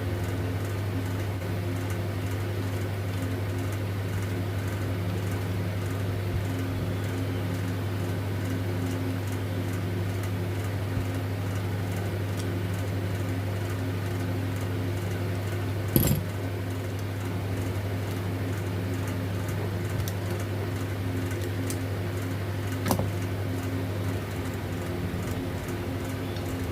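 Steady electrical hum, even and unchanging, broken by two sharp metallic clicks: one a little past the middle, the louder, and another later on.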